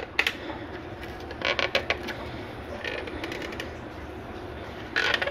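Thin clear vacuum-formed plastic mold crinkling and crackling as it is flexed and peeled off a cast plaster rocket, in several short bursts.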